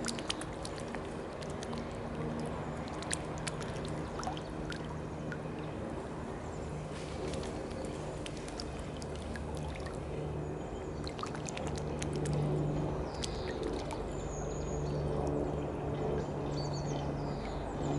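Mute swan feeding at the water's edge, its bill dabbling in the shallows with many small splashes and clicks, over the steady drone of a helicopter overhead. Small birds chirp near the end.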